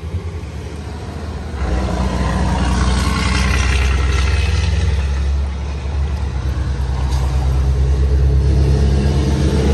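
A steady low mechanical rumble, like an engine running, that gets louder about a second and a half in and dips briefly about halfway through.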